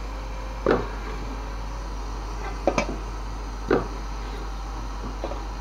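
A few short knocks and scrapes of a metal wire strainer against a steel wok, about four in all, over a steady hiss from hot frying oil.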